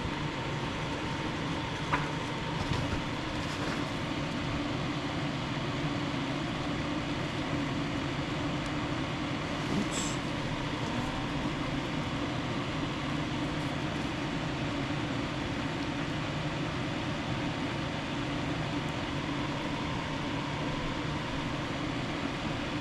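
Steady low hum and hiss of a running machine or fan, with a few faint small clicks.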